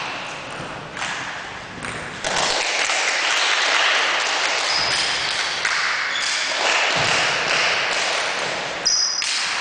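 Table tennis ball striking bats and the table during a rally: a few sharp ticks over steady background noise.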